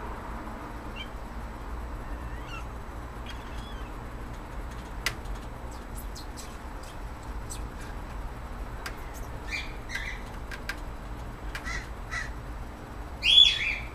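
Short, high-pitched animal calls in small clusters, bird-like, the loudest coming near the end, with scattered light clicks in between.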